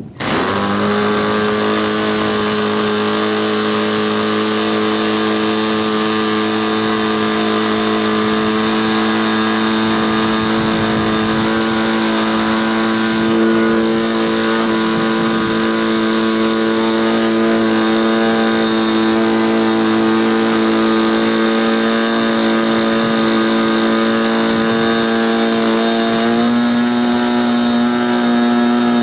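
Model airplane glow engine catching on an electric starter and then running steadily through a break-in run, a constant pitched drone with propeller noise. About 26 seconds in its speed steps up slightly and holds there.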